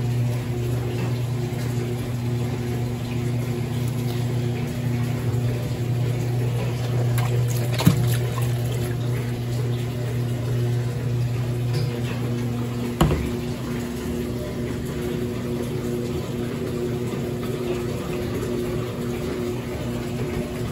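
Water running into top-loading Brastemp washing machines over a steady low machine hum. Two sharp knocks partway through, after the second of which the hum drops lower.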